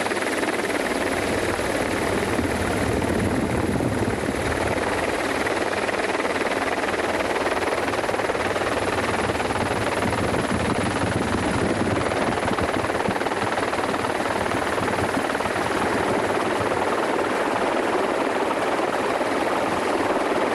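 Helicopter rotor and engine noise, a steady dense chopping with a faint high whine above it.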